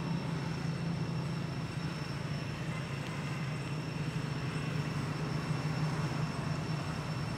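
Steady low rumble of a running engine, even in level throughout, with faint steady high-pitched tones above it.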